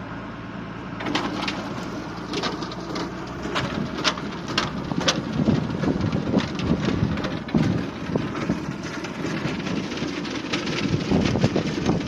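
A vehicle engine running steadily at low revs, with scattered sharp taps and ticks over it.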